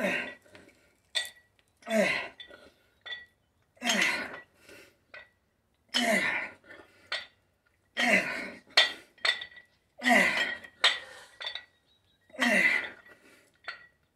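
A man lets out a forceful grunting exhale with each rep of bent-over rear-delt dumbbell raises, about every two seconds, seven times, each one dropping in pitch. Between the exhales come short metallic clinks from the plate-loaded dumbbells.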